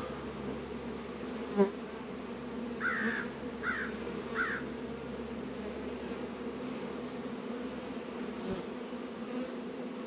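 Honey bees buzzing around open hives in a steady hum. A single sharp knock comes about a second and a half in, and three short chirps follow a little later.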